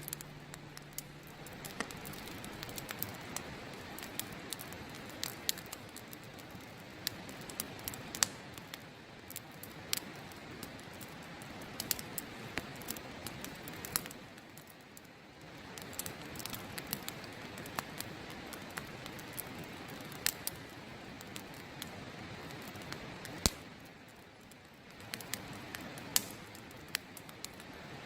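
Wood campfire crackling, with sharp irregular snaps and pops over a steady rushing of river water.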